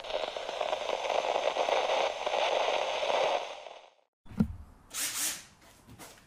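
TV static sound effect: a crackling hiss of interference noise for about four seconds that cuts off suddenly, followed by a thump and a short whoosh.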